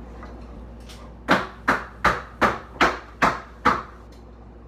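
Seven sharp knocks, evenly spaced at about two and a half a second, each with a short ring, then they stop.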